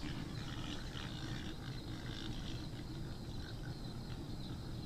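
Group of feral hogs grunting faintly and repeatedly, picked up by a trail camera's microphone, over a steady background of night insects.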